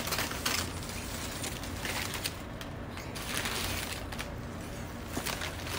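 Crumpled packing paper rustling and crinkling as it is pulled out of a cardboard box by hand, in several uneven bursts.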